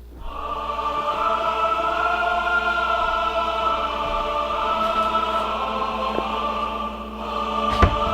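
Choral music with voices holding long sustained chords, coming in suddenly at the start. A sharp thump sounds shortly before the end.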